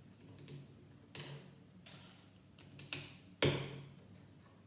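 Plastic Lego pieces being handled and snapped together: a run of about six small sharp clicks, the loudest about three and a half seconds in.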